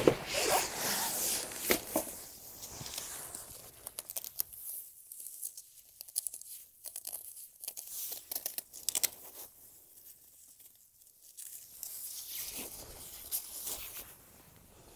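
Hook-and-loop (Velcro) straps being pulled apart and pressed shut, a run of short ripping rasps clustered around the middle, amid rustling of the travel cot's fabric-covered base board being handled.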